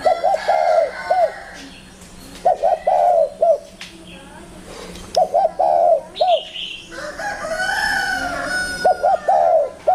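Spotted dove cooing: four phrases of several short, low, rounded coo notes, spaced a few seconds apart. Between the third and fourth phrases comes a longer, higher drawn-out call from another bird.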